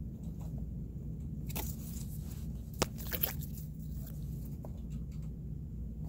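Handling noises of paper cutout puppets being moved about: light rustling and scratching with one sharp tap near the middle, over a steady low hum.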